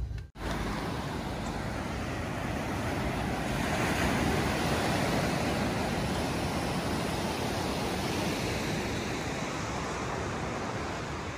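Sea surf breaking on a sandy beach: a steady wash of waves that swells a little about four seconds in.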